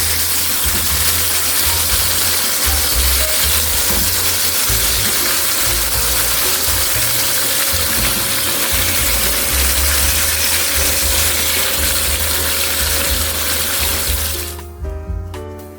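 A loud, steady hiss over background music with a low thudding beat. The hiss cuts off suddenly near the end, leaving piano music.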